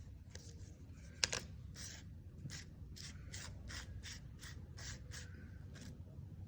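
A 3x3 Rubik's cube being twisted by hand: a run of short plastic scraping clicks as the layers turn, about three a second, with one sharper click about a second in.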